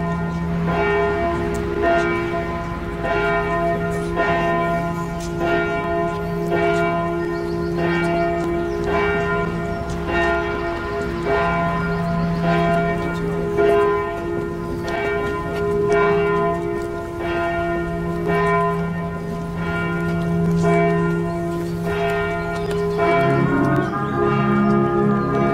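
Church bells tolling steadily, struck about once a second, each strike leaving a long ringing hum. Near the end, music comes in over the bells.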